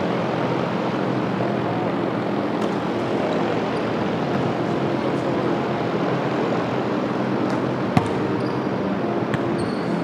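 Large drum floor fans running with a steady whooshing hum. A single sharp knock comes about eight seconds in.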